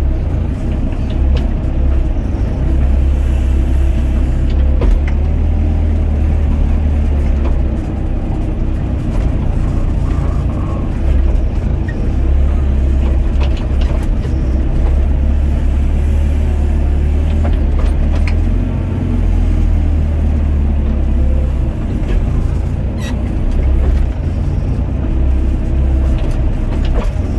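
Doosan DX55 mini excavator's diesel engine running steadily under load while the bucket digs into compacted gravel, with a few sharp clicks and knocks from the bucket and stones.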